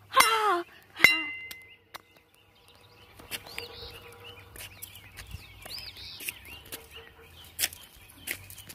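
A short cry, then about a second in a sharp hit from a metal baseball bat that rings with a high ping for about half a second. Birds chirp through the rest.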